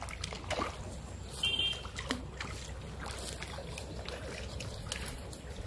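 A hooked fish thrashing at the water's surface on a pole line, making a run of irregular splashes.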